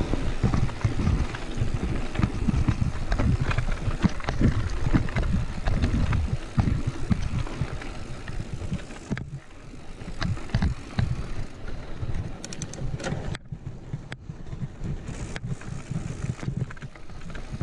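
Mountain bike rolling down a rough, stony dirt track: a steady rumble of tyres on gravel with wind buffeting the microphone, and frequent rattles and knocks from the bike jolting over stones. It eases somewhat after about nine seconds as the bike slows.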